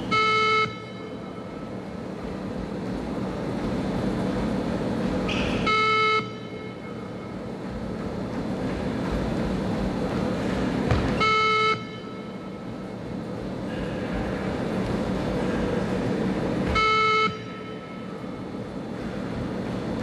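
Beep-test recording sounding four shuttle beeps, each a single electronic tone about half a second long, coming about every five and a half seconds at the stage 9 pace of the 20 m shuttle run; each beep marks the end of one 20 m shuttle. Between the beeps there is a background of hall noise that grows louder up to each beep.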